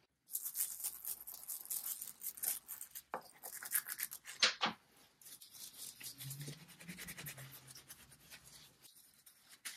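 A cloth scrubbing a small carved wooden handle in quick back-and-forth strokes, louder in the first half and softer after about five seconds, as the old finish is worked off.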